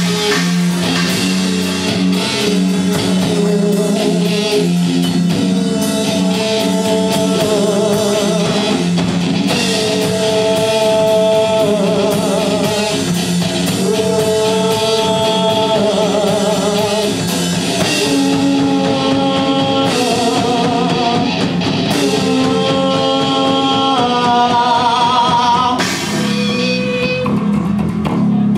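A live rock band playing: a male singer's voice over electric guitar, bass guitar and a drum kit. The singing drops out near the end while the band keeps playing.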